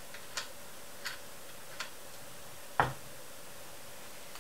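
Small ticks and clicks of metal parts being handled while a bolt is started by hand into an Emco Unimat SL jigsaw attachment's mounting: three faint ticks in the first two seconds, then one sharper knock near three seconds in.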